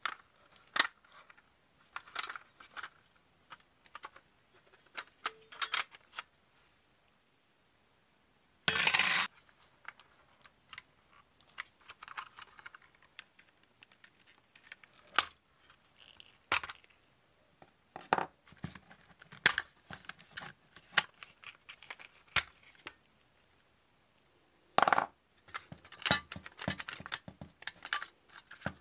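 Handling noises of a vintage Tonka Volkswagen Beetle toy being taken apart by hand: scattered clicks, taps and scrapes of its metal and plastic parts. There is a short, louder scraping burst about nine seconds in and another cluster around twenty-five seconds.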